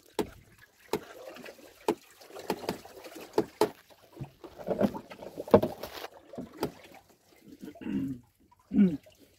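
Irregular knocks and clicks of hands and fishing tackle against a small boat's hull and gunwale, over the low rumble of the boat at sea, with two short voice-like sounds near the end.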